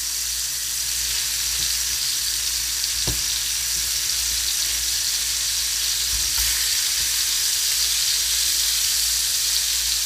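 Seasoned tuna steaks sizzling as they sear in hot melted butter and olive oil in a frying pan, a steady high hiss. More steaks are laid into the pan with tongs partway through.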